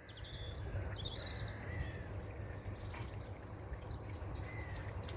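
Wild birds chirping and singing, many short high calls, over a steady low rumbling noise.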